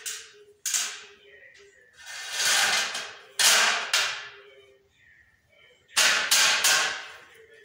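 Sharp metallic snaps and a scraping rush of sheet steel as a steel drywall levelling hanger is bent and fixed onto a T-45 steel stud profile: one snap, then a rising scrape ending in a snap, then three quick snaps near the end.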